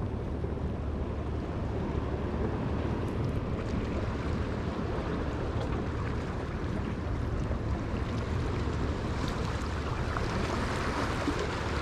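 Steady wind rumbling on the microphone, mixed with waves washing against the jetty rocks.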